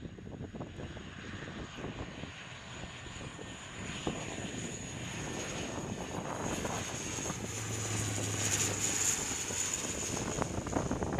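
Lockheed C-130J Super Hercules passing low overhead, its four Rolls-Royce AE 2100 turboprop engines and propellers running with a steady high turbine whine, growing louder as it approaches and goes by.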